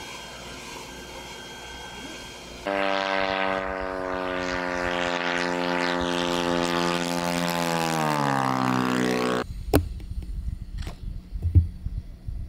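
RQ-7 Shadow unmanned aircraft's Wankel rotary engine and propeller flying close by: a loud, steady engine drone that starts suddenly about three seconds in, drops in pitch near the end, then cuts off. A quieter steady hum comes before it, and a few sharp knocks come after.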